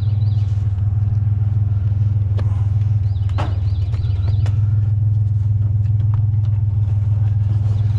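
Truck engine idling with a steady low rumble, with a few sharp knocks as metal scrap is shifted into the truck bed.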